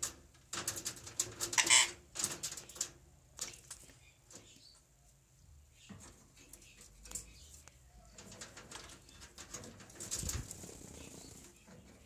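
A green Psittacula parakeet bathing in a stainless steel water bowl: short bursts of splashing and wing-flapping, busiest in the first three seconds and again about ten seconds in.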